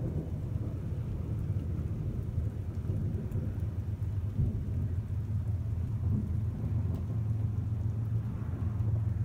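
Low, continuous rumble of thunder from a thunderstorm, with rain.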